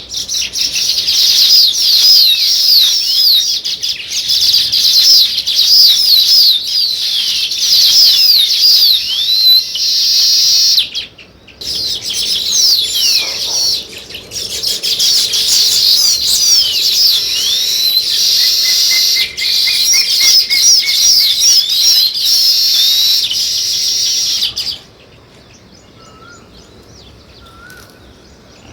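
House sparrows chirping loudly in a dense, rapid stream of overlapping high chirps, with a brief break about eleven seconds in. The chorus cuts off suddenly near the end, leaving only a few faint chirps.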